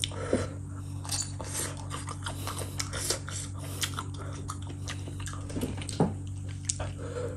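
Close-miked soft wet clicks and sticky taps of oily fingers handling food, setting red king chillies onto a whole cooked fish, with a louder short squelch about six seconds in as the hand presses the fish. A steady low hum runs underneath.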